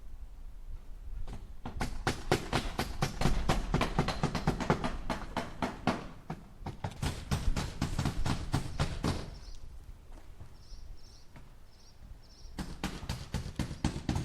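Hammer striking nails into wood in a fast run of blows, several a second. The blows stop for about three seconds, when a few faint high chirps are heard, then the hammering starts again near the end.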